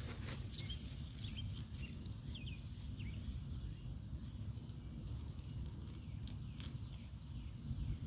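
Hands digging in soil and dry pine-needle mulch to loosen onion bulbs: scattered crackles and rustles over a steady low rumble, with a few faint bird chirps two to three seconds in.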